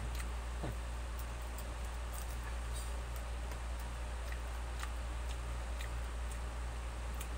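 Steady low hum, with scattered small clicks and smacks of someone chewing and picking at fried chicken with his fingers.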